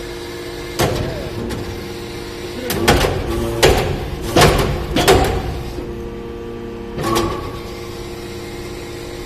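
Hydraulic metal-chip briquetting press running with a steady hum, broken by a series of metallic clanks and scrapes as compressed swarf briquettes are pushed out of the pressing chamber onto the outlet plate. The knocks bunch together between about three and five seconds in, with single ones near the start and near the end.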